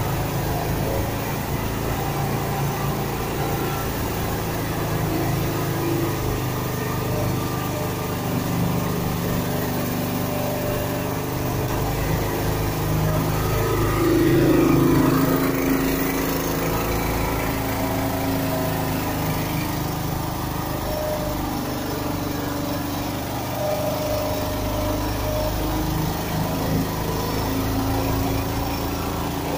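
Engine-driven straw-bedding machine running steadily as it blows straw for bedding, with a brief louder swell about halfway through.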